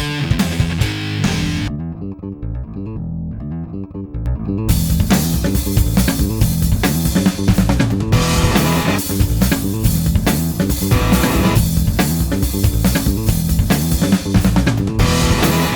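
Rock music with electric guitar, bass and drums. About two seconds in the top end drops out for a filtered break, and the full band comes back nearly five seconds in.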